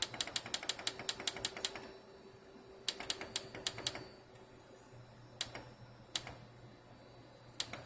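Buttons on a solar inverter's control panel clicking as the settings are scrolled: a quick run of about a dozen clicks, then a few short groups and single presses, over a steady low hum.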